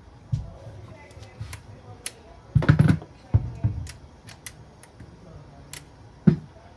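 Hand tools and metal parts clicking and clinking on a motorcycle engine's crankcases, with a few heavier knocks in between.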